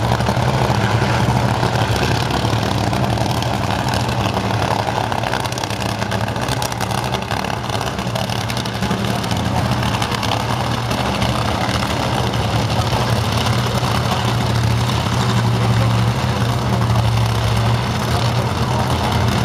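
Drag racing car's engine idling steadily with a deep, even note while the car waits to run.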